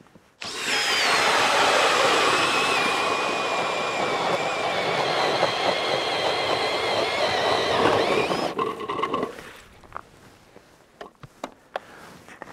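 Cordless-drill-powered ice auger boring a hole through lake ice: a steady motor whine over the grinding of the blades, its pitch dropping slightly as it cuts. It starts about half a second in and stops after about eight seconds, followed by a few small knocks and crunches.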